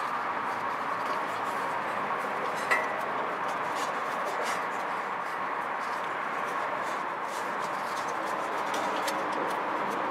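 Light clicks and knocks of a plastic-handled strap oil filter wrench being fitted and worked around a stuck spin-on oil filter, with one sharper knock about three seconds in. A steady background hum with a faint high tone runs underneath.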